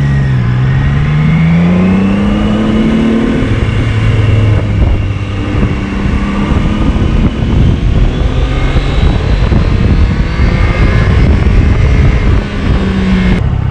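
Triumph Daytona 660's inline three-cylinder engine pulling away, its pitch rising for the first few seconds and then dropping as it shifts up a gear. It then runs on under acceleration, half buried under loud wind rush over the microphone.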